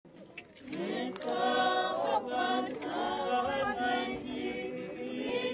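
A choir of voices singing unaccompanied, coming in about a second in.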